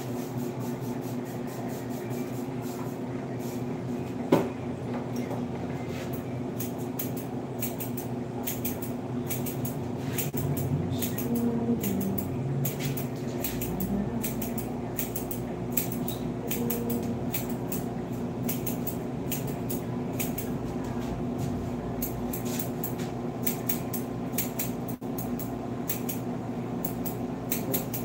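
Barber's scissors snipping hair in quick runs of sharp clicks, over a steady low electric hum, with one louder knock about four seconds in.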